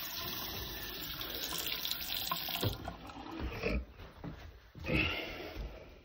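Bathroom sink faucet running on the hot side, water flowing steadily now that pressure is back to the refilled water heater. The flow stops a little under three seconds in, followed by a couple of soft thumps.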